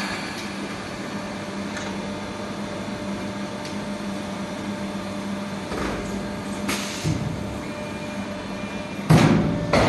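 Wire-forming triangle buckle making and welding machine running with a steady hum, a brief rushing sound about six seconds in, and loud repeated knocks starting near the end.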